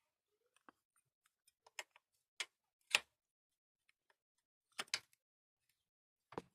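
Wrench clinking against the moped's metal parts: a handful of separate sharp clicks, the loudest about three seconds in, with a quick pair near five seconds.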